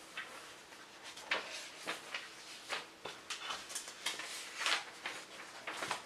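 Sheets of paper being handled by the light pad, with irregular soft rustles and scrapes.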